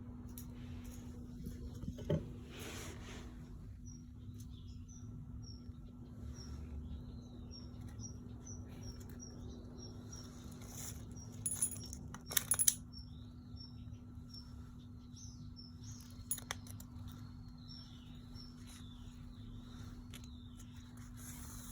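Small bird chirping in short high notes, about two a second, with a few sharp clicks, the loudest about halfway through, over a steady low hum.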